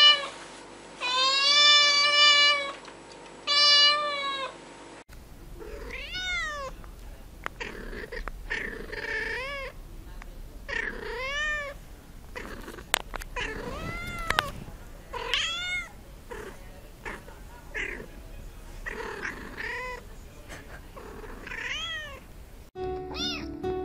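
Cats meowing: a kitten gives two long, loud meows, then a second cat gives a dozen or so short meows, each rising and falling in pitch, every second or two.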